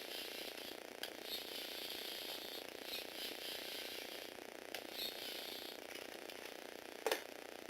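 Small electric motor driving the plastic gears of a motorised Lego Technic model, whirring in four short runs of about a second each with brief pauses between, then one sharp click near the end.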